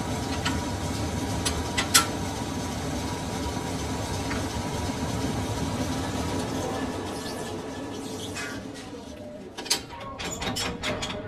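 Belt-driven metal lathe running with a large cast pulley blank spinning in the chuck: a steady mechanical hum. A sharp click comes about two seconds in, and a quick run of clicks and knocks near the end.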